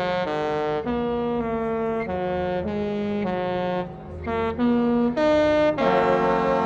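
Disney cruise ship's musical horn playing a song melody as a run of separate brassy notes. It pauses briefly in the middle and ends on a long, fuller held note near the end.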